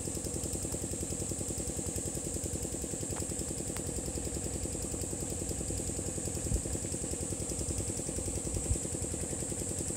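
An engine running steadily at an even, fast chug, over a constant high hiss, with a couple of soft thumps in the second half.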